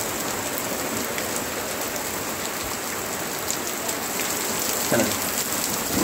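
Heavy monsoon rain falling steadily onto muddy ground and puddles: a continuous hiss flecked with the ticks of single drops.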